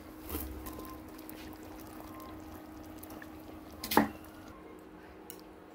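Broth in a clay cooking pot, with liquid sounds, then a single sharp splash about four seconds in as a handful of pale grains is dropped into it.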